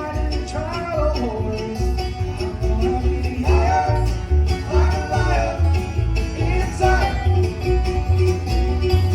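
Bluegrass-style song: a singer's phrases over plucked string instruments, with a steady bass beat.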